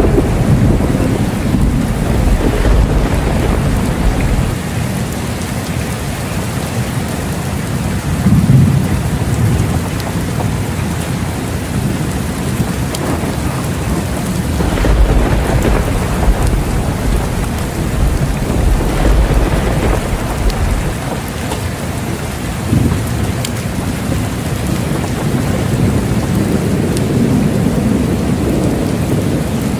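Steady rain falling, with rolls of thunder rumbling low several times throughout.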